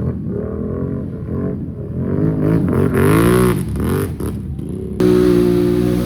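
Can-Am Outlander ATV's V-twin engine revving up and down repeatedly, its pitch rising and falling several times. About five seconds in it switches abruptly to a louder, steadier engine note.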